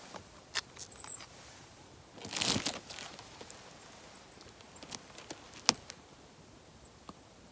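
Close handling noise: clothing and gear rustling as an arrow is handled, with a louder rustle about two seconds in and a few small sharp clicks and taps, the sharpest just before six seconds.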